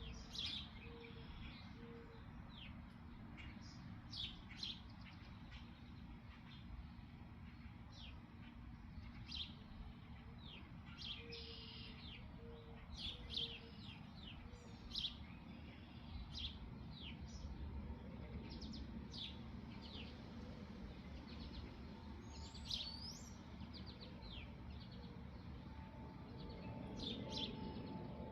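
Small birds chirping at a feeding spot: many short, sharp chirps scattered throughout, over a low steady background rumble. A few short runs of a low note, repeated about twice a second, come in at the start, about 11 seconds in and near the end.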